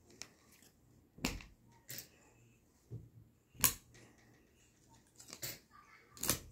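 Faint, scattered rustles and soft taps, about seven in all, from new baby clothes being handled and laid out on a carpet.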